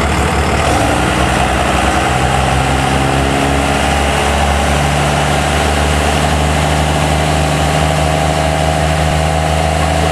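Diesel engine of a second-generation Dodge Ram pickup, a 5.9 Cummins turbo-diesel, running at raised, steady revs, with its note stepping up about five seconds in. It is heavily over-fuelled and pours thick black smoke from a stack behind the cab.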